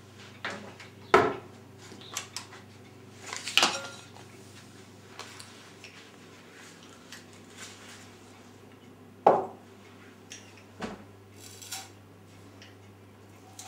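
Kitchenware being handled: a teaspoon clinking against a small glass jar as sugar is spooned in, with a few sharp knocks of containers being set down, the loudest about a second in and about nine seconds in.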